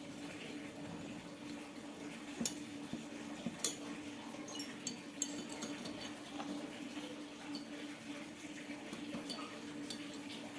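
Scattered light clinks and taps of small metal tools and parts being handled, over a steady low hum.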